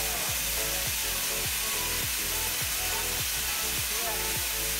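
Background music with a deep, regular bass beat, laid over a steady hiss of steam escaping from the boiler and steamer.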